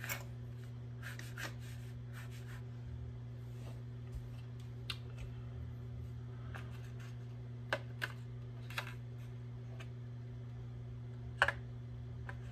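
Small pistol parts being handled and set down: scattered light clicks and taps, the loudest about eleven seconds in, over a steady low electrical hum.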